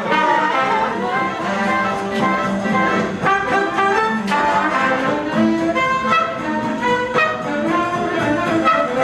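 A 1940s-style dance-band orchestra playing a brass-led jazzy tune, with notes changing steadily and no pauses.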